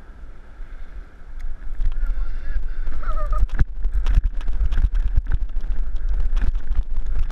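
Wind buffeting the microphone with a heavy low rumble. About three seconds in there is a brief honk-like squawk. Through the second half come irregular clicks and knocks as a conventional reel is worked against a hooked fish.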